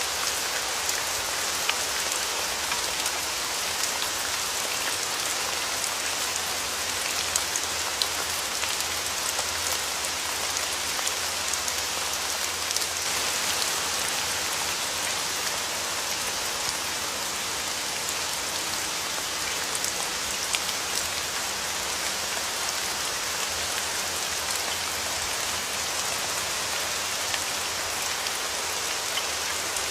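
Steady rain, with many individual drops ticking sharply on a surface.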